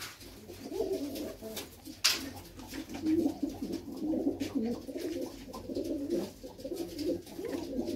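Several domestic pigeons cooing together in a steady, overlapping stream, with a single sharp click about two seconds in.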